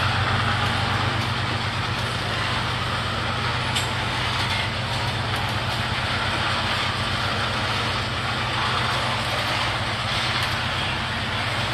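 Loaded rock train's aggregate cars rolling past on steel wheels: a steady, even rumble along the rail with a low steady hum underneath.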